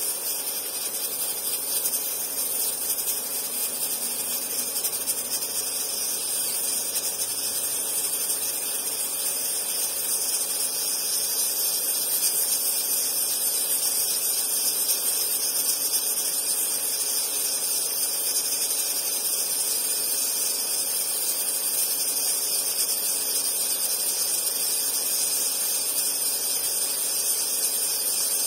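Steam hissing steadily from under the pressure weight on the lid of a 3-litre aluminium pressure cooker, growing slightly louder over the first dozen seconds, with no whistle blast.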